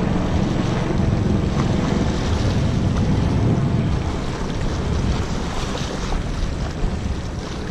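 Steady wind blowing on the microphone, with waves washing against rocks.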